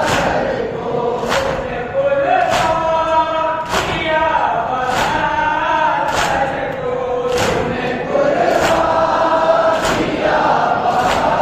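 Crowd of male mourners chanting a noha together in a long, drawn-out melody, with matam: hands slapping chests in unison, one beat about every 1.2 seconds.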